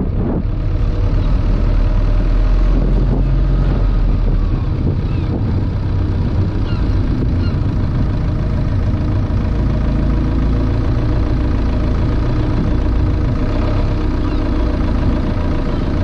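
Car running with a steady low rumble of engine and road noise, picked up through a car-mounted action camera's microphone with wind noise on it.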